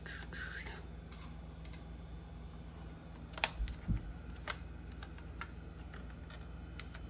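Scattered single clicks from a computer keyboard and mouse being used, about ten spread over several seconds, with a couple of dull thumps near the middle as the loudest part, over a steady low hum.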